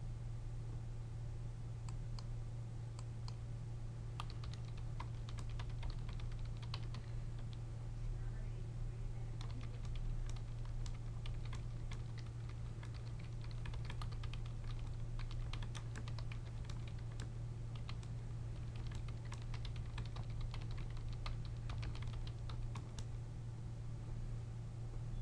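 Typing on a computer keyboard: irregular runs of key clicks that start about two seconds in and stop shortly before the end, over a steady low hum.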